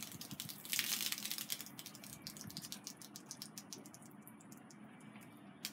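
Diet Coke fizzing and foaming out of a plastic bottle after Mentos have gone in, a short hiss about a second in followed by a long run of small, irregular crackling pops.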